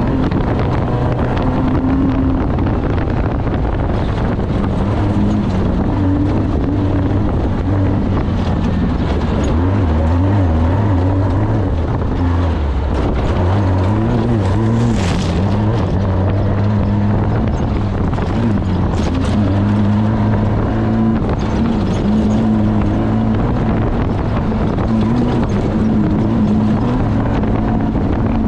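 Off-road race vehicle's engine running hard, its pitch rising and falling with throttle changes, with wind buffeting the microphone. A couple of sharp knocks come about halfway through.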